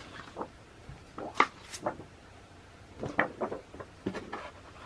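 Paper photo prints and their packaging being handled: short taps, slides and rustles in a few small clusters.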